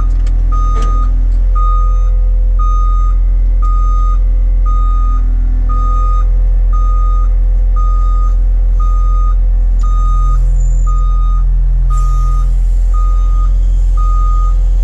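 Reversing alarm beeping steadily about once a second over the low, steady drone of a New Holland machine's engine, heard from inside the cab.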